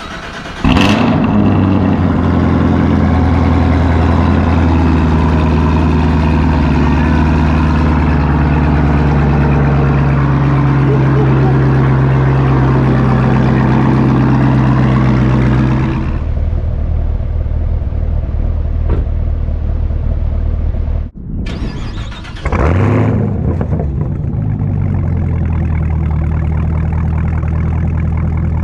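Chevrolet Camaro ZL1's supercharged 6.2-litre V8 on its stock NPP exhaust, starting up with a flare and holding a steady high idle, then settling to a lower idle about 16 seconds in. After a brief break near 21 seconds it starts again with a flare and settles into a steady idle.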